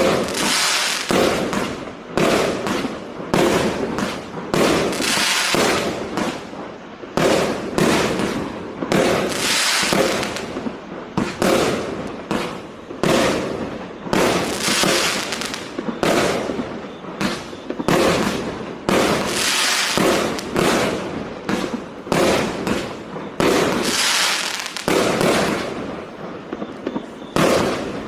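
A 36-shot, 25 mm consumer firework cake firing shot after shot: a steady string of sharp launch pops and aerial bursts, about one to two a second.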